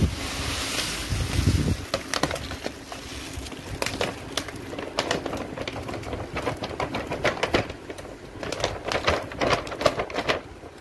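Dry basmati rice pouring from a plastic packet into a plastic storage container: a steady rush of grains for about the first two seconds. It then breaks into scattered patters and crackles as the flow thins to a trickle and the packet is tipped and handled.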